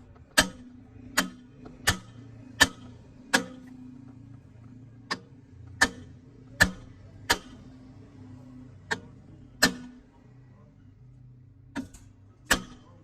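Hammer tapping on a metal part: about thirteen sharp strikes, roughly one every 0.7 seconds in short runs with brief pauses between them, over a faint low steady hum.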